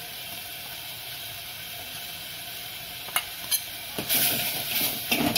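Ground green masala paste frying in oil in a metal pot, a steady sizzle as it is stirred with a steel ladle. The ladle clicks against the pot twice a little after three seconds. The hiss turns louder and harsher from about four seconds, as powdered turmeric and chilli go into the hot oil and are stirred in.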